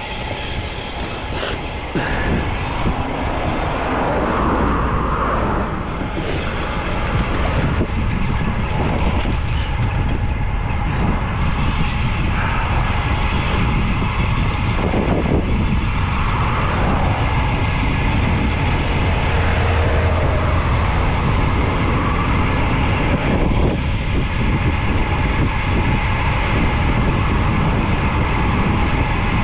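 Wind rushing over the microphone of a camera riding with a road cyclist on a fast descent, a dense steady noise that grows louder over the first several seconds as speed builds, then holds.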